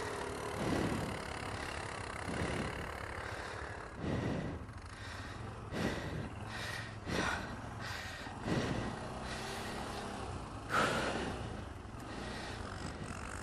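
An ATV engine running steadily, with a short louder surge about every one and a half seconds.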